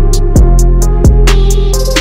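Background music with a steady beat: a deep kick drum about every 0.7 seconds, sharp high ticks between the hits and held bass notes underneath.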